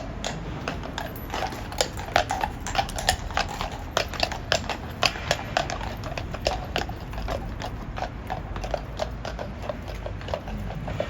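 Shod horse's hooves clip-clopping on hard ground: many quick, irregular strikes, several a second.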